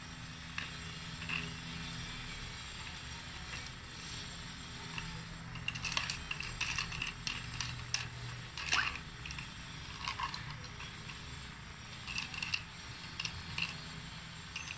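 Metal bolts gripped in pliers clicking and clinking against each other and the plastic cup as they are worked about in a cup of liquid stripping solution: scattered small clicks in two bunches, in the middle and near the end, over a steady low hum.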